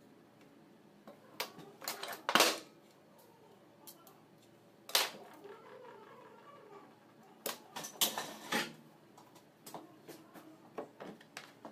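Irregular clicks, taps and scrapes of metal parts and tools being handled on an alternator. The loudest clusters come about two seconds in and again around eight seconds in, with a single sharp knock at about five seconds.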